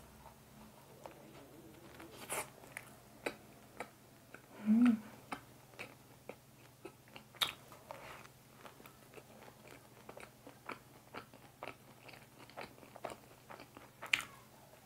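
Close-miked eating sounds of a soft fresh-cream mocha bun: bites and chewing, with many small wet smacks and mouth clicks. A brief low hum of the voice about five seconds in.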